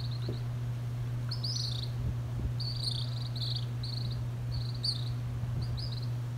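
Baby birds begging for food: short bursts of high-pitched chirping, repeated about six times, starting about a second in. A steady low hum runs underneath.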